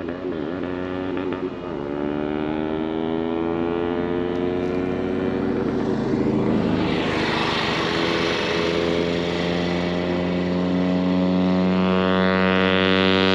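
Bajaj Dominar 250's single-cylinder engine running through its stock muffler at fairly steady revs, the pitch drifting only slightly. A hiss grows near the end.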